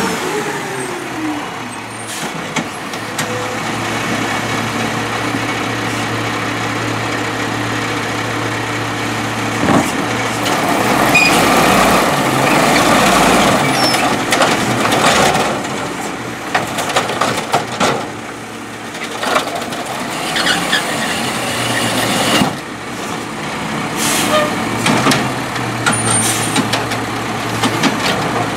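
Peterbilt 320 garbage truck with an Amrep automated side-loader arm: the diesel engine runs steadily as the truck stops, then revs up under hydraulic load while the arm lifts a cart and shakes it out into the hopper. Sharp clanks and bangs follow as the cart is knocked empty and lowered back to the curb.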